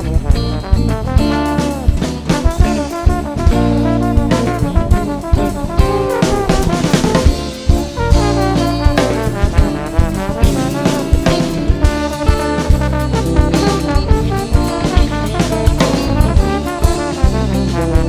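Live band music: a trombone plays the melody, some notes sliding, over drum kit, electric bass and electric guitar, with frequent sharp drum hits.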